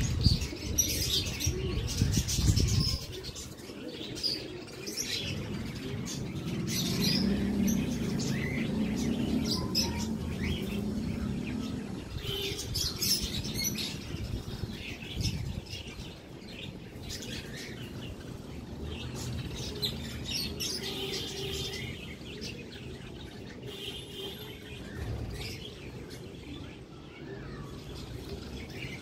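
Birds chirping on and off in short calls, over a low rumble that is strongest in the first few seconds.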